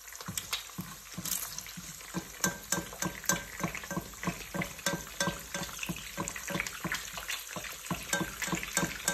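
Eggs frying in oil left over from frying bacon, the hot fat crackling and popping steadily with many small spits as a spatula works in the pan to baste them.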